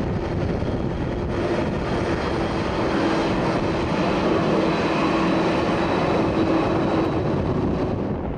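Boeing 747-400 airliner's four jet engines running at taxi power as the aircraft turns on the runway: a steady rushing noise with a low humming tone that comes and goes.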